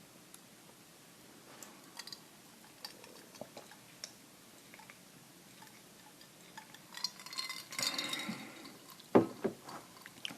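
Light clinks and ticks of ice cubes in a glass being handled, a louder rustling, crackling stretch about seven seconds in, then two sharp knocks near the end.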